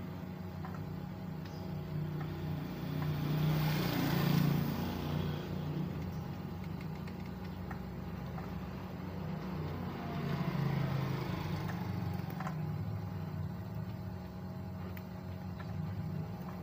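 An engine idling steadily, swelling louder about four seconds in and again about eleven seconds in.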